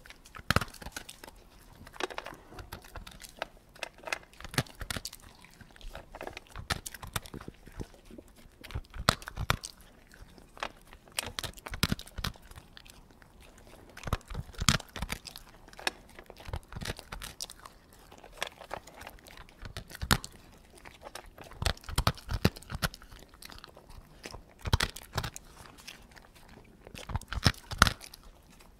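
Dog eating slowly from a bowl: wet chewing and crunching that comes in short, irregular clusters every two to three seconds.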